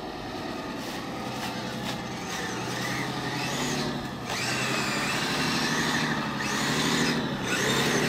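Kyosho Blizzard SR radio-controlled snowcat driving on its tracks through snow, its electric motor and gears whining, the whine rising and falling several times with the throttle.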